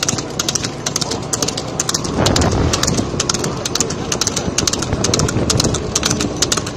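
A buffalo-drawn racing buggy on the move: a quick, uneven clatter of knocks, about four or five a second, from hooves and the cart. A rush of wind and road noise swells about two seconds in.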